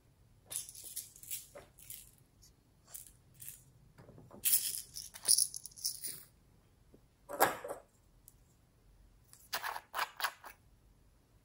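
Small beads and sprinkles rattling in a small plastic container as they are shaken out, in several short bursts. Near the end come quick clicks and knocks of a hollow plastic toy being handled.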